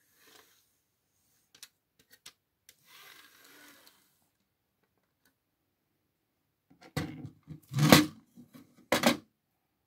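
Plastic CD tray of a Sony CMT-CP33 micro hi-fi being slid in and out of its loader by hand, moving freely now that its fault is fixed: a few faint clicks and a soft sliding rasp, then a cluster of louder plastic knocks and clatter near the end, the loudest about eight seconds in.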